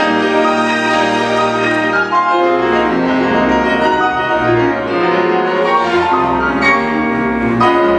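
Grand piano playing a classical concerto with a chamber string orchestra.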